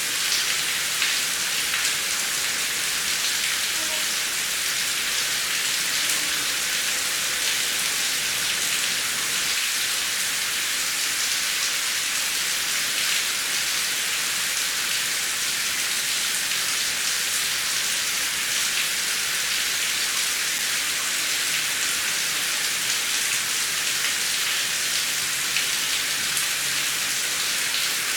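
Heavy rain falling steadily: a dense, even hiss of drops with no thunder.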